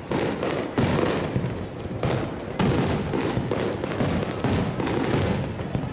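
Fireworks display: several sharp bangs of shells bursting in quick succession over a dense, continuous crackle.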